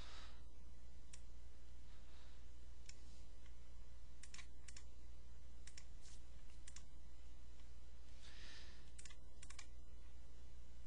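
Faint, scattered sharp clicks at irregular intervals over a steady low hum of room tone.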